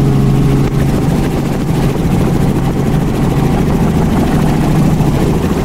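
Robinson R44 helicopter in flight, heard from inside its open-doored cabin: a steady, loud drone of the main rotor and its six-cylinder Lycoming piston engine.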